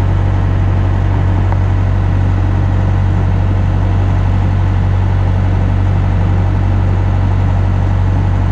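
A widebeam canal boat's engine running steadily under way, a constant low hum.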